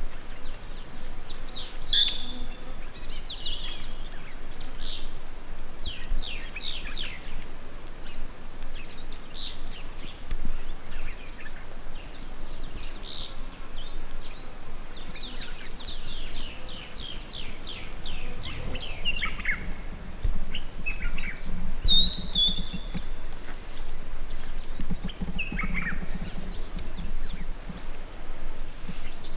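Several wild birds calling and singing: repeated short chirps, whistles and fast trills, some in quick falling series, over a steady outdoor background hiss.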